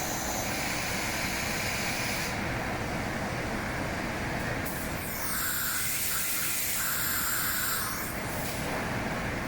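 Woodworking CNC machining centre running with a steady mechanical noise. Twice a hissing, high whine comes in over it: for the first two seconds, and again from about five seconds in for about three seconds.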